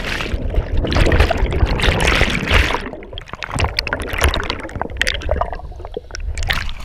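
Underwater rush of air bubbles churning around a submerged action camera just after a plunge into a lake, heard muffled through the water. About three seconds in it eases to scattered bubble pops and clicks, then swells again near the end.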